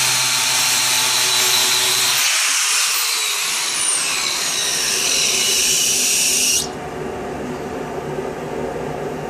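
Electric angle grinder with an electroplated grinding cup grinding a steel plate, a loud hissing grind. It cuts off sharply about two-thirds of the way through, leaving a quieter steady machine hum.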